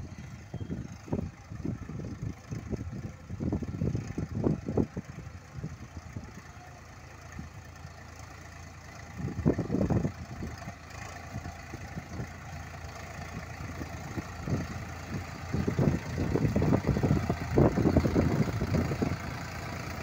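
Agri King tractor engine running under load as it pulls a disc plough through the soil, with an uneven low rumble that swells and fades, louder in the last few seconds.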